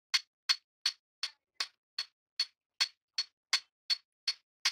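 Hand hammer striking a red-hot steel chopper blade on a steel anvil block in a steady rhythm. About thirteen even blows, a little under three a second, each a sharp, short ringing clink.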